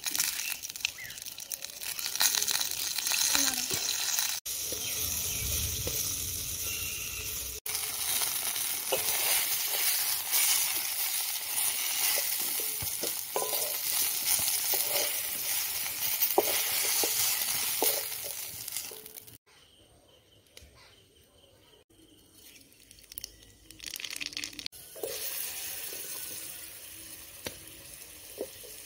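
Potato and eggplant pieces sizzling as they fry in oil in an iron wok, with a metal spatula scraping and turning them. The sizzling drops to near silence for about five seconds about two thirds of the way through, then returns quieter.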